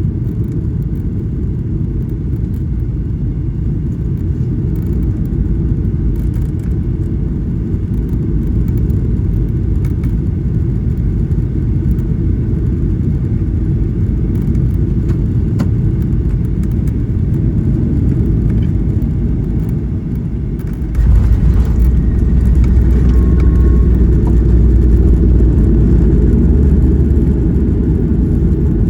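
Boeing 737-800 cabin noise on the ground: a steady low rumble of engines and rolling wheels. About two-thirds of the way in it steps up suddenly to a louder, deeper rumble.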